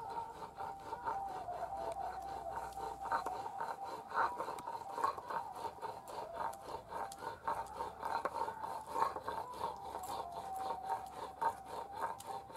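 Stone pestle rolled back and forth over a flat stone grinding slab, crushing wet mustard seeds into paste, with rhythmic gritty scraping strokes, a few a second.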